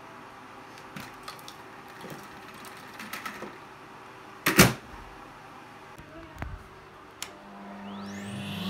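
Plastic clicks and rustling as a Dyson bin is handled and emptied, with one loud knock about halfway through. Near the end a Numatic Henry vacuum cleaner's motor switches on and whines up in pitch as it spins up.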